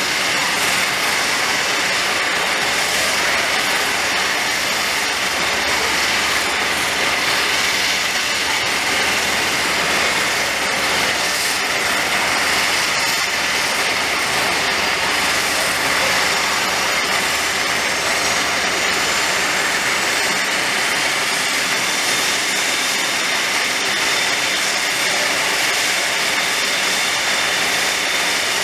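Pratt & Whitney Canada PW150A turboprop of a Bombardier Dash 8 Q400 starting up: a steady turbine rush and whine, with a high whine rising in pitch over the last third as the engine spools up and the propeller speeds up.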